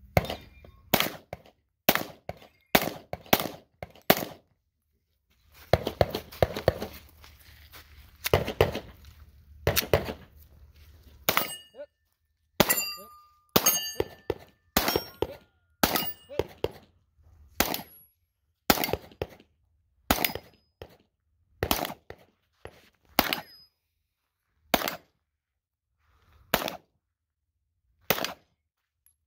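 A string of rapid pistol shots from a braced Glock-based pistol in a Flux chassis, fired at a steady pace with a few pauses, some shots followed by the ringing ding of steel plate targets being hit. Between about five and eleven seconds in, a low rushing noise runs under the shots.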